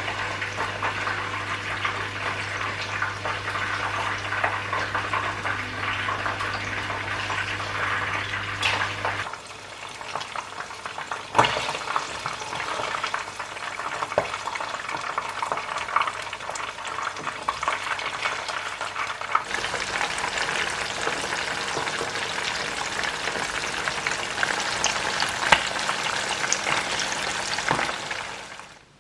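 Food frying in hot oil: a steady sizzle with scattered crackles and pops. A low steady hum runs underneath for about the first third and cuts off suddenly.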